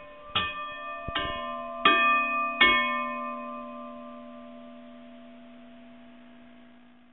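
Bell-like chimes struck four times at even spacing, a little under a second apart, the last two loudest, then ringing on and slowly fading away.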